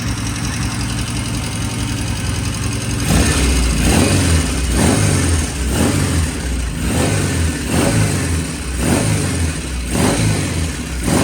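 Vintage British motorcycle engine idling evenly, then blipped on the throttle about once a second from about three seconds in, each rev rising and falling back. The engine has freshly set ignition timing and runs with no excessive noises.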